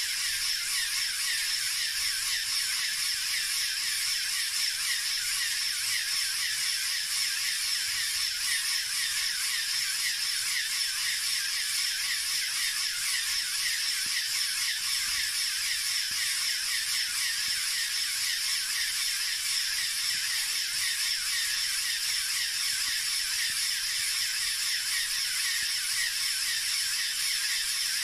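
LEGO Technic air compressor running steadily, its four EV3 Large Motors driving eight large pneumatic pumps as it pumps air into a balloon. A constant, high-pitched whir with no low rumble.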